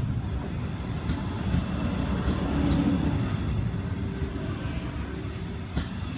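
Metronom double-deck passenger coaches rolling past close by: a steady low rumble of wheels on rail, with a few short sharp clicks along the way.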